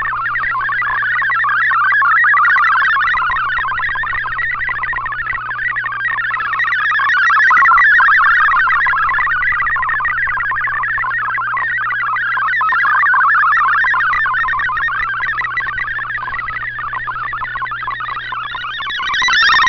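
MFSK64 digital-mode data signal from a shortwave broadcast on 7780 kHz, heard through an Icom IC-R8600 receiver: a fast, warbling jumble of tones packed into a band about 1 kHz wide, under a steady low hum. The signal swells and fades every few seconds with shortwave fading.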